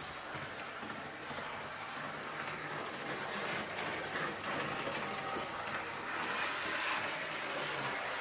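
Electric locomotive running, its traction motor noise over the steady rumble and hiss of the train on the track, growing a little louder about halfway through.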